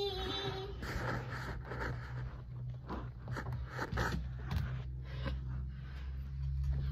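Rustling and scraping of curtain fabric and phone handling noise, in many short strokes, as a house cat is pulled down off the top of a curtain. A held cry at one steady pitch ends about half a second in, over a low steady hum.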